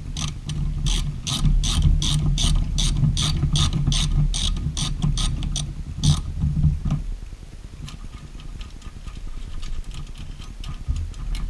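Socket ratchet clicking in an even rhythm, about three clicks a second, as it backs off the 5/8-inch nut that holds the ignition switch. The clicking stops about six seconds in, and only faint scattered clicks and handling follow.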